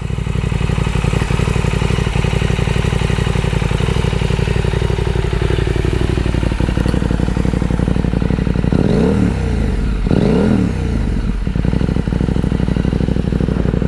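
KTM 890 SMT's 889 cc parallel-twin engine running through an aftermarket Vandemon titanium exhaust, with a steady low note. About nine to eleven seconds in, the engine note swings up and down twice.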